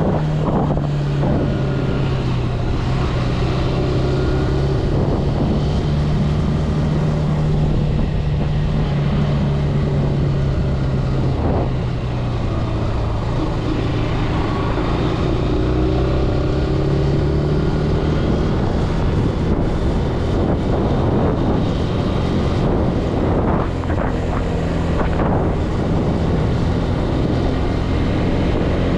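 Zontes C125 125cc motorcycle engine running under way, its pitch rising and falling with the throttle through the bends, with wind noise on the microphone.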